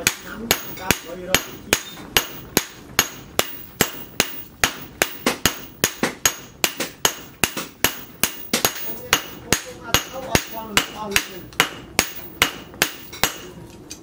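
Sledgehammer and hand hammer striking a red-hot steel sickle blade, cut from tractor plough steel, on a steel stake anvil: sharp ringing metal blows, about three a second, the two hammers taking turns.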